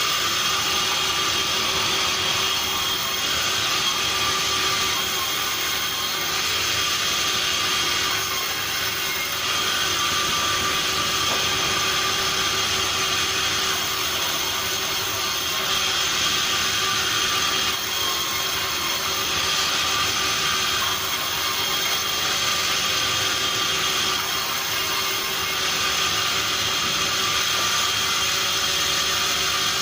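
Sawmill machinery running: a steady mechanical drone with a high hiss that swells and eases every few seconds.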